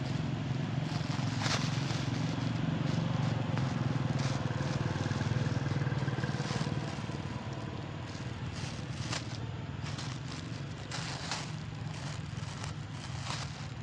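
Clear plastic bag crinkling as a long-tailed macaque picks at it, scattered crackles and rustles over a steady low motor drone that eases off about seven seconds in.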